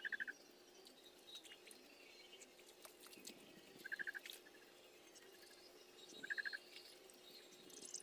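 Quiet outdoor ambience of animal calls: a short chirp of four or five rapid pulses, heard three times, a few seconds apart, with fainter scattered high chirps.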